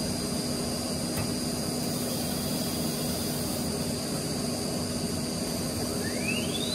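Holztek PRO-R1A CNC nesting router running, a steady high whine over a hum. Near the end a whine rises quickly in pitch.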